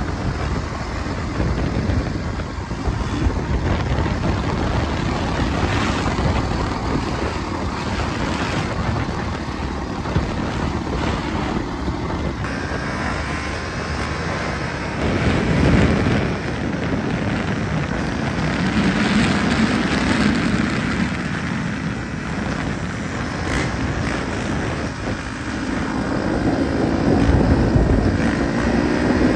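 Dirt bike engines running and revving as riders pass along a trail, the engine note swelling and falling away a couple of times, with wind noise on the microphone.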